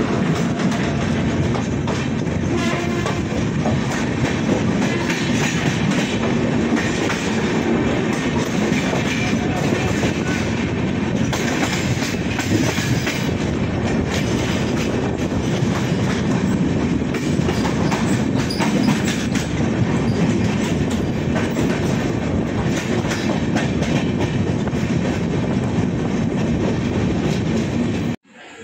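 Passenger train running at speed: a steady rumble of the coaches with the wheels clicking over the rail joints. It cuts off suddenly near the end.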